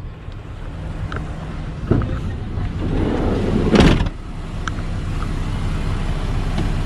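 Minivan engine idling steadily, with a knock about two seconds in and a short rolling noise ending in a louder knock just before four seconds.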